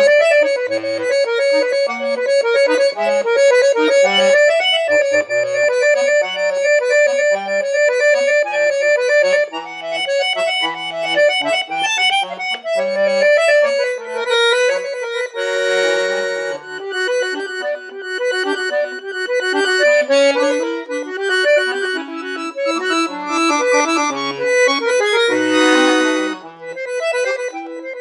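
Solo accordion playing a quick running melody over short bass notes, with two loud, full sustained chords, one a little past halfway and one near the end.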